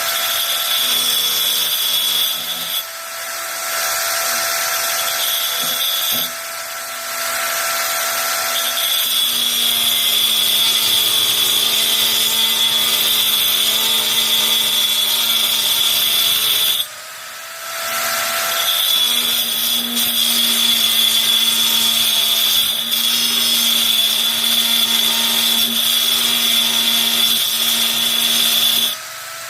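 Titanium AG710 710 W angle grinder running continuously with its disc worked against material in long stretches. The load eases off briefly a few times while the motor keeps spinning.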